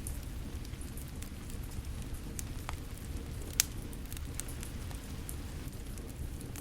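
Wood fire crackling with scattered sharp pops, one louder pop a little past halfway, over a steady background of falling rain.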